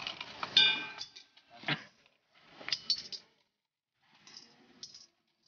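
Coins dropped one at a time into a row of black alms bowls: about five separate clinks, each with a brief ringing tone, the loudest about half a second in.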